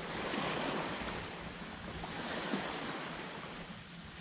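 Small waves lapping and washing at the shoreline, swelling and easing slowly, with wind buffeting the microphone.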